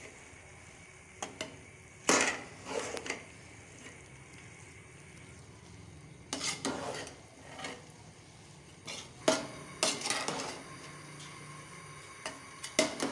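Metal spoons scraping and clanking against a large metal pot while cooked rice is tossed and mixed, in several short bursts with pauses between.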